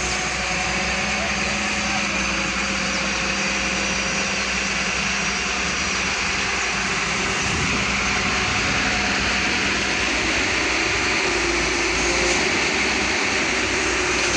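A heavy engine running steadily, a continuous drone with a faint hum under a broad hiss, growing a little louder near the end.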